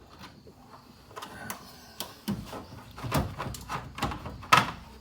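A wrench working a 10mm bolt loose from the cooling-fan mount deep in an engine bay: irregular metal clicks and knocks, with a louder clank about four and a half seconds in.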